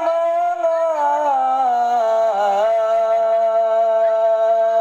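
A single voice chanting Quran recitation in a long, drawn-out melodic note. The pitch steps gently downward over the first two seconds, then holds steady.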